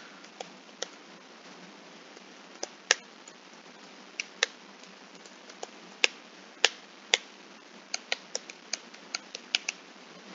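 Computer keyboard typing: single sharp key clicks at an uneven pace, with short pauses between small runs, over a faint steady hiss.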